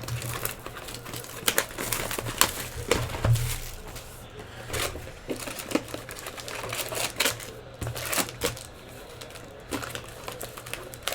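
Trading-card packs and box being handled and opened by hand: irregular crinkling of wrappers with quick clicks and taps, over a steady low hum.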